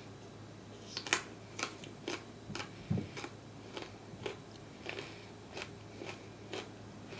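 Close-miked chewing of crunchy food: short crisp crunches about twice a second, starting about a second in.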